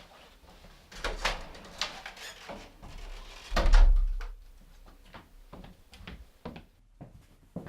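A door being handled: a run of clicks and knocks with one heavy, deep thump about three and a half seconds in as it shuts.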